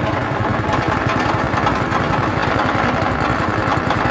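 Honda GX160 single-cylinder four-stroke engine running steadily, driving the spinning rotor of a Mahkota MCC-4200 grass chopper.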